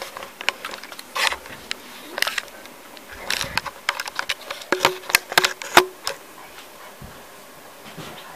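Handling noise of a camera being picked up, moved about and set down on a table among papers: a run of sharp knocks, clicks and rustles that settles down about six seconds in.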